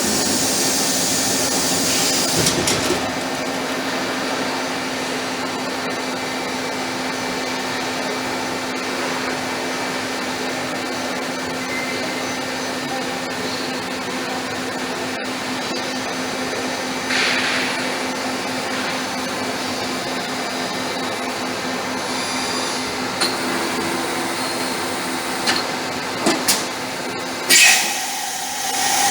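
CNC bridge milling machine running: a steady hum under an even hiss, with a short hissing burst partway through and a few brief knocks near the end.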